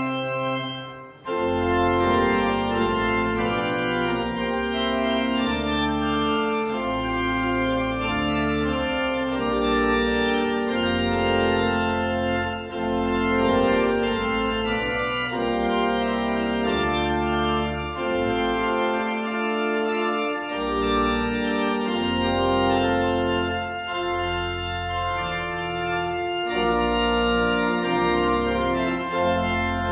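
Organ music: slow sustained chords over held bass notes, changing every second or two, with a brief break about a second in.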